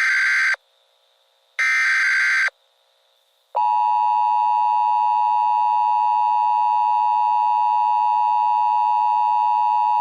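Emergency Alert System opening tones: the tail of one raspy digital header burst, then another burst about a second long. About three and a half seconds in, the steady two-tone EAS attention signal starts and holds.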